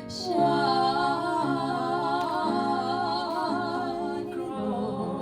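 Musical-theatre song performed live: a singer holds a long note with wide vibrato over sustained piano chords that change about once a second, and a new sung word begins near the end.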